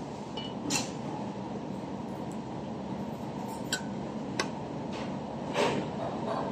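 A few light clinks of a metal spoon against a soup bowl, scattered over a steady room background with a low hum.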